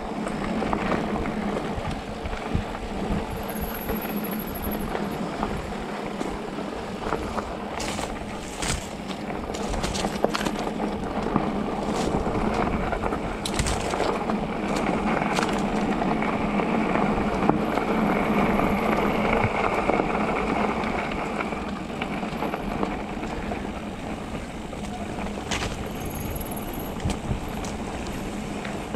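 Specialized Turbo Levo e-mountain bike rolling down a dirt forest trail: steady tyre and trail noise with a constant low hum, and sharp rattles and knocks of the bike over bumps, in clusters around a third of the way in, near the middle and near the end.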